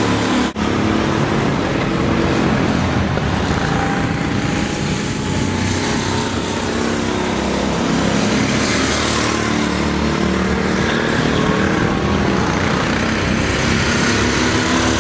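Several go-kart engines running together at race speed, a steady mix of engine notes at different pitches. There is a brief break about half a second in.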